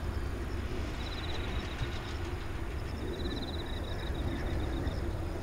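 Distant steady roar of a climbing Boeing 747's four jet engines. Short spells of a rapid, high pulsed trill come and go over it, twice.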